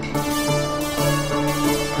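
Instrumental background music, its notes changing about twice a second.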